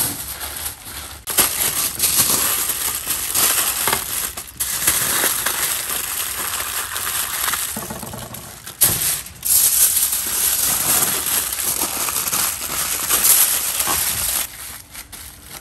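Thick aluminium foil crinkling and crumpling loudly as hands fold and press it around a large joint of meat. The crackling runs in long stretches broken by a few short pauses.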